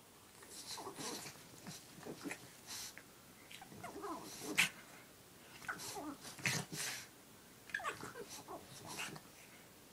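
Two pugs playing at close range, giving short breathy noises and small whines in irregular bursts about every second, a few dropping in pitch, the loudest about halfway through.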